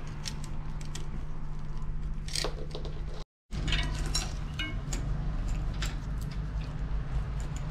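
Light metallic clicks and clinks from hands working on a bicycle's rear derailleur, chain and cassette, over a steady low hum. The sound cuts out for a moment about three seconds in.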